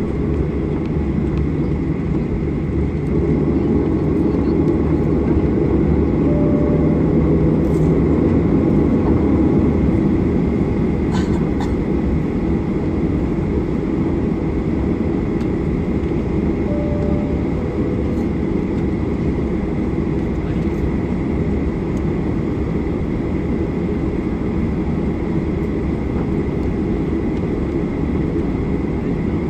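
Cabin noise of a Boeing 737-800 taxiing onto the runway: a steady low rumble from its CFM56-7B engines at taxi power, with a faint steady high whine above it.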